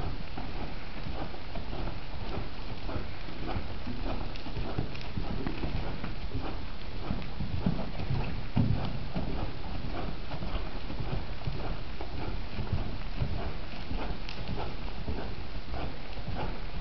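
Hoofbeats of a ridden horse moving steadily around an arena on dirt footing, a continuous run of short thuds.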